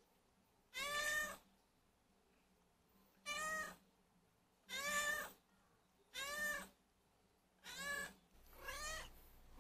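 Domestic cat meowing six times, one to two seconds apart, each meow short and rising then falling in pitch: a hungry cat demanding to be fed.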